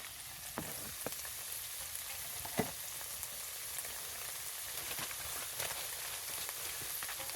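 Onions and garlic sizzling as they fry in a pan, a steady hiss, with a few sharp clicks of a utensil against the pan.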